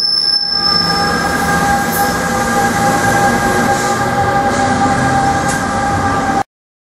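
NJ Transit ALP-46A electric locomotive and its train moving off, a steady whine of several held tones over the rumble of wheels on rail. The sound cuts off abruptly near the end.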